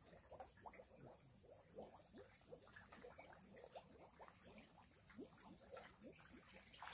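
Faint bubbling and splashing of aerated water in a biofloc fish tank, a busy run of small blips.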